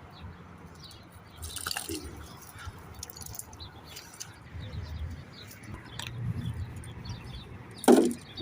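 Faint bird chirps with scattered knocks and rustles; a sharp knock about eight seconds in is the loudest sound.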